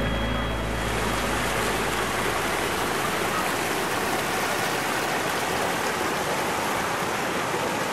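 Steady rushing of water tumbling over a waterfall, an even hiss with no change.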